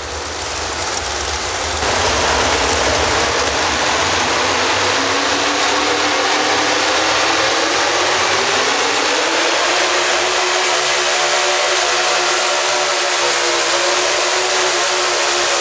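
Economy hot rod pulling tractor's engine running hard under load, loud and steady, its pitch climbing over several seconds as it pulls the sled.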